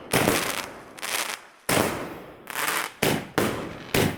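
Fireworks going off in a rapid run of sharp bangs, about two a second, each dying away before the next.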